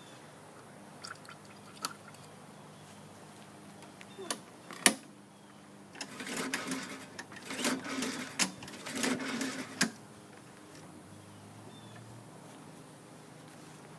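Recoil starter cord of a Husqvarna 7.25 hp push mower pulled three times, a rasping whirr on each pull with no engine turning over: the recoil is broken and not engaging the flywheel. A few clicks and a sharp knock come before the pulls.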